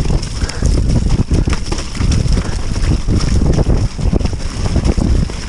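Downhill mountain bike descending a rough dirt trail at speed: a steady rush of wind on the action-camera microphone, with irregular knocks and rattles as the bike hits bumps.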